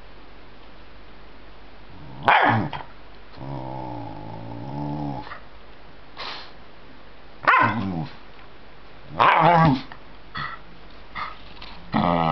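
Cairn terrier barking and growling while being teased in play. After about two seconds of quiet comes a sharp bark, then a long growl, then short barks every second or two, the barking becoming almost continuous near the end.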